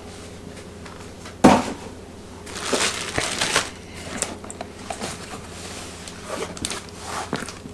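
Handling of unboxed welder accessories and their packaging: a sharp clack about a second and a half in, then rustling and crinkling of plastic bagging, followed by scattered light clicks of parts being handled.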